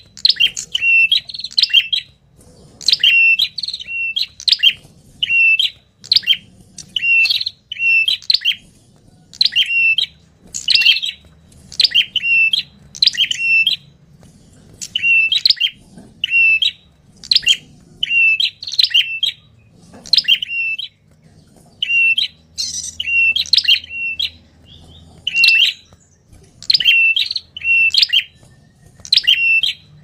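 Ashy tailorbird (red-headed prenjak) calling: sharp, high chirps in quick clusters of two to four notes, repeated about once a second.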